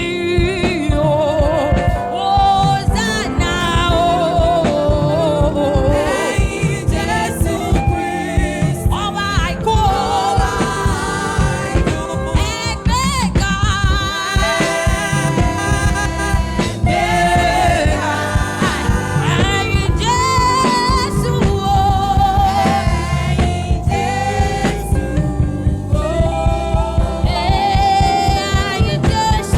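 Gospel praise music: voices singing a melody over a band with a steady, driving beat.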